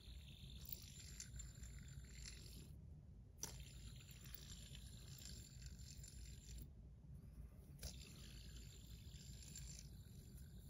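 Faint whir of a stainless steel Kladis Studios Nithos fidget spinner spinning in the hand, dropping out twice briefly, with two light clicks of the spinner being handled.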